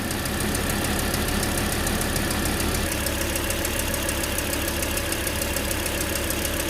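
Volvo C30 engine idling unevenly with an even pulsing beat, misfiring on several cylinders: the car has lost power and sets misfire codes, which the mechanic puts down most likely to the ignition coils.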